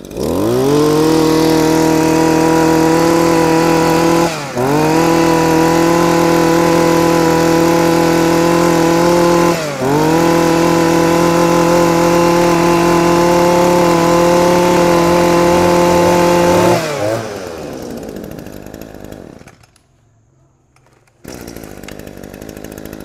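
Echo SRE 2625 26cc two-stroke brush cutter engine revved up to full throttle and held there, with two brief dips where the throttle is let off and squeezed again. About seventeen seconds in the throttle is released and the engine winds down, goes almost silent for a couple of seconds, then runs quietly at idle near the end.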